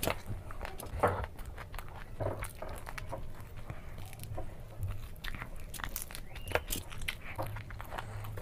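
Close-miked mukbang eating: a person biting into and chewing momos, with irregular wet clicks and smacks of the mouth over a faint low hum.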